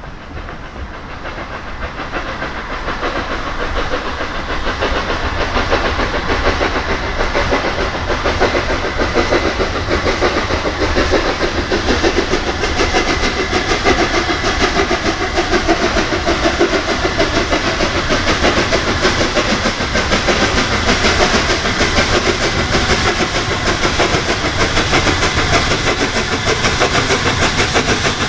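LNER Gresley A3 Pacific 60103 Flying Scotsman, a three-cylinder steam locomotive, working hard as it approaches with a train. Its rapid exhaust beats grow louder over the first few seconds, then hold steady.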